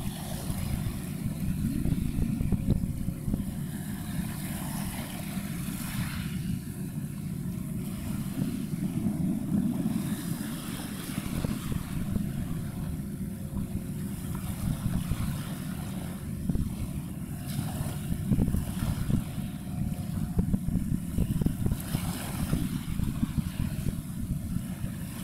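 Uneven low rumble of an ultra-large container ship and its harbour tug under way on the water.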